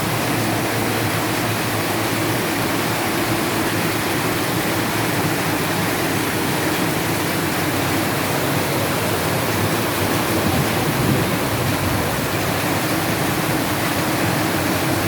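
Steady summer rain pouring down, an even, unbroken hiss of falling water.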